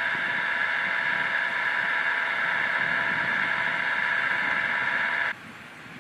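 Steady whine of jet turbine engines, many even tones over a rushing hiss. It cuts off suddenly about five seconds in, leaving a quieter hiss.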